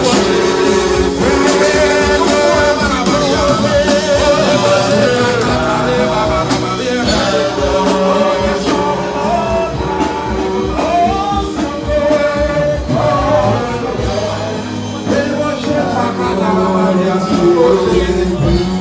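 A song with a singer over a band with a steady beat.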